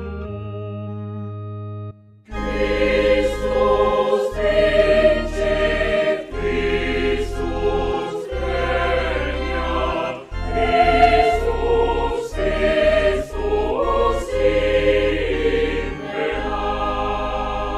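A choir singing a hymn over instrumental backing, with long held bass notes that change every second or two. It starts after a short drop about two seconds in.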